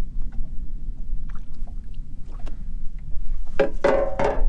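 Steady low wind rumble and water lapping against a small open boat, with a few faint knocks. Near the end comes a short voice-like cry lasting under a second.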